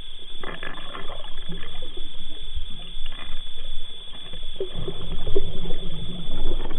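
Water heard through a submerged camera: muffled sloshing and trickling with scattered soft knocks, over a steady high whine.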